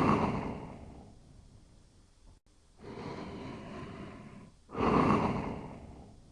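Soft snoring of a sleeper breathing slowly and evenly. A stronger snoring breath comes at the start and another about five seconds later, each fading over a second or two, with a softer breath between them.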